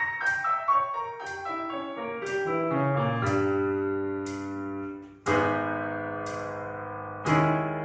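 Piano music: a run of single notes stepping downward, then held chords struck about every two seconds.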